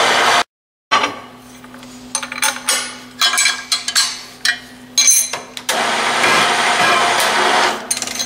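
A wrench clinking and clanking on the steel hold-down clamp and nut of a milling-machine table, over a steady machine hum. A loud, steady rushing machine noise fills the first half-second and comes back from about six seconds in.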